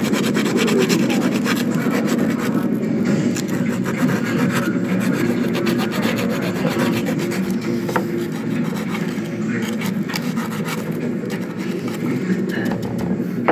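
Steady hand scrubbing of a small metal mini-bugle part with a red abrasive, a continuous rasping rub made of quick back-and-forth strokes close to the microphone.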